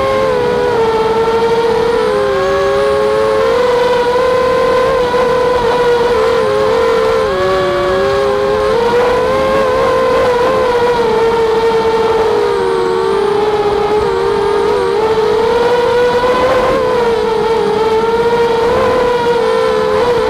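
Walkera Rodeo racing quadcopter's motors and propellers whining steadily in flight, several close tones that waver, drift apart and merge as the motors speed up and slow down.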